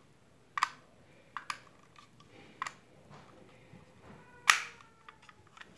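Sharp plastic clicks and taps from a small toy cash register being handled, about five in all, the loudest about four and a half seconds in with a brief ring after it.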